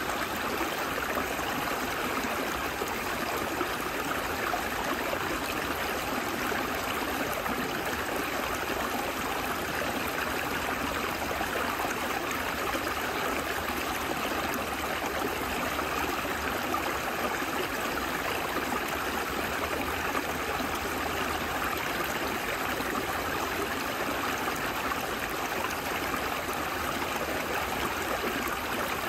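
A small, shallow, partly frozen stream running steadily over stones and between shelves of ice: an even, continuous sound of flowing water.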